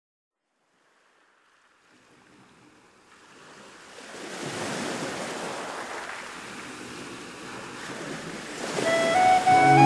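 After about two seconds of silence, a soft rushing noise like surf fades in, swells, and holds. Flute music begins right at the end.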